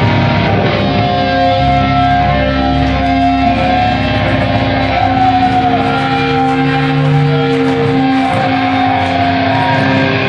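Hardcore metal band playing live: electric guitars and bass holding long ringing notes, loud.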